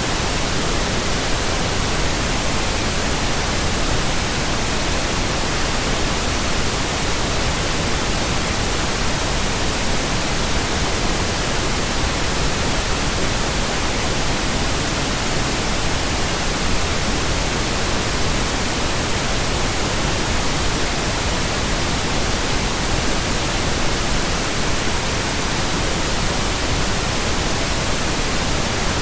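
Steady pink noise: an even, unchanging hiss spread across all pitches, with no rhythm or breaks.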